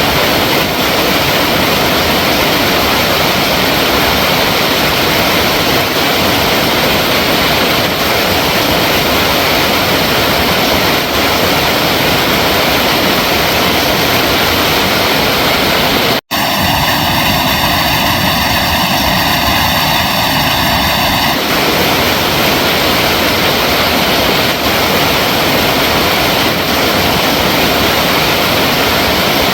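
Steady, loud rush of flowing water. About sixteen seconds in it cuts out for an instant, as at an edit, and for a few seconds afterwards it sounds hollow before evening out again.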